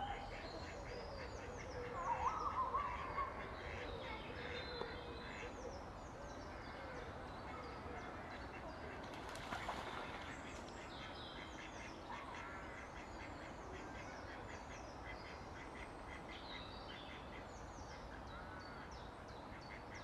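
Mallard ducks calling as a group of drakes mobs a female, loudest about two to three seconds in, with a short burst of splashing water about nine seconds in as they pile onto her at the water's edge.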